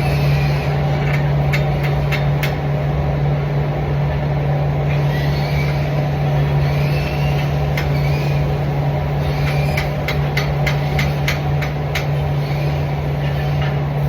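Steady low machine hum with scattered sharp clicks and taps.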